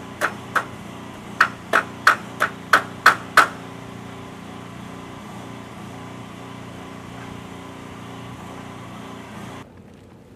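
Hammer striking nails through a wooden batten laid over a blue roofing tarp: about ten quick, sharp blows in the first three and a half seconds, three and then seven. After that a steady low hum goes on and cuts off suddenly near the end.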